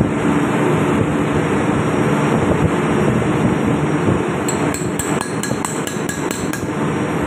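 Steady, loud drone of ship's machinery. About four and a half seconds in comes a quick run of eight or so light metallic clicks over about two seconds: an Allen key clinking against the steel body of a MAN fuel injection pump as it is worked.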